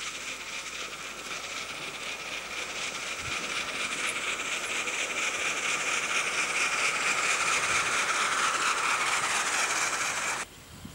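Ride-on miniature live-steam locomotive running past on its track, growing louder as it nears, then cutting off suddenly near the end.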